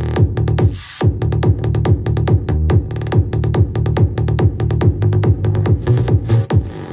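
Electronic dance music with a heavy kick drum about twice a second and strong bass, played through a 6-inch ACR woofer in a small box driven by a mono TDA2030 BTL amplifier.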